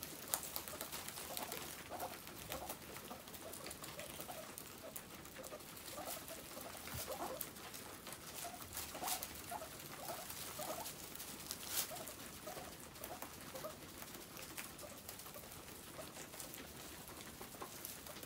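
Guinea pigs eating hay: a run of faint crunches, rustles and small clicks from chewing and pulling at the dry stalks.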